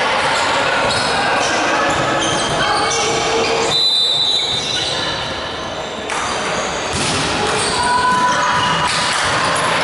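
Echoing sports-hall sound during a volleyball match: players' voices and calls, ball bounces and shoe squeaks on the court floor, with a short high tone about four seconds in.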